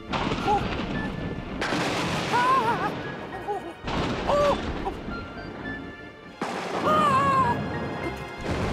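Cartoon soundtrack of sudden loud bursts of rushing noise, four in a row, each stopping abruptly after a second or two, with short whimpering cries over them and background music.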